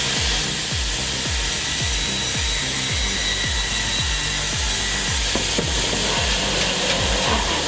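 A steady hiss of wood being cut by a machine, under background music with a steady deep beat.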